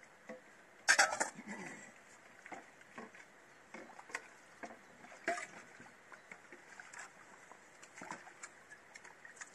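Metal bowls being washed by hand in an enamel basin of water: a clatter of steel against the basin about a second in, then scattered clinks and water splashing.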